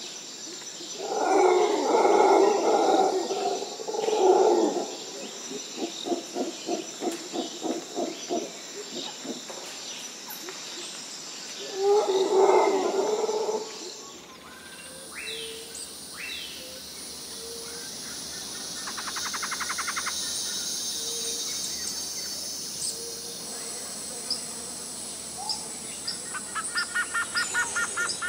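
Recorded wildlife soundscape. In the first half, loud animal calls, including a run of rapid regular pulses. About halfway it cuts to a steady high hiss with short bird chirps and quick trills.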